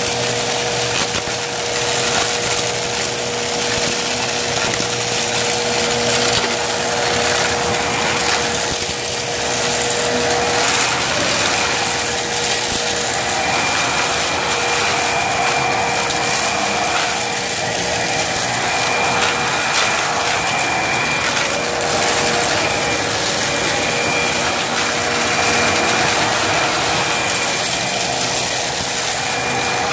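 Vacuum cleaner running steadily with a constant whine, its sound swelling and easing slightly every few seconds as it sucks up debris.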